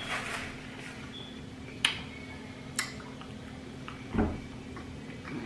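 Eating close to the microphone: two sharp clicks, like a utensil tapping a plate, and a soft low thump, over a steady low hum.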